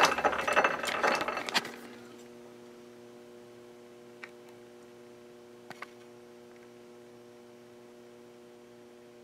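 Metal lathe in back gear winding music wire onto a mandrel into a spring: a rapid mechanical clatter that stops about two seconds in, leaving a faint steady hum and two light clicks.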